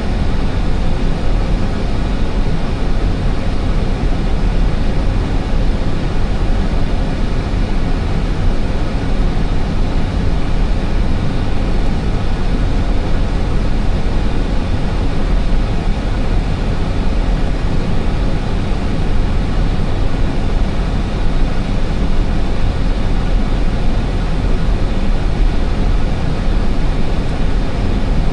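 Steady rush of airflow and engine noise inside an Airbus A320 cockpit on final approach, heaviest in the low rumble, with a few faint steady tones above it.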